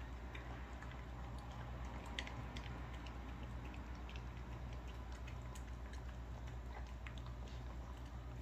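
A dog eating shredded boneless chicken from a stainless steel bowl: soft chewing with many small, irregular clicks, over a steady low hum.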